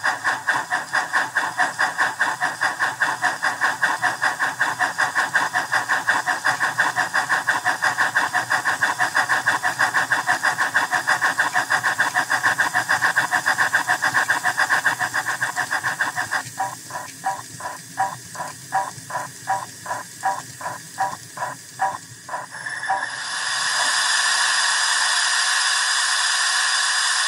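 Dapol Terrier model steam locomotive's Howes sound system playing steam chuffs through its speaker in a fast, even rhythm. Past the middle the chuffs turn thinner and slower, about two and a half a second, and then give way to a steady hiss.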